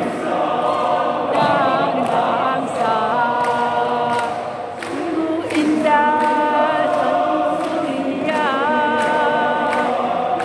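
Choir singing, several voice parts holding sustained chords together, dipping briefly in loudness about halfway through.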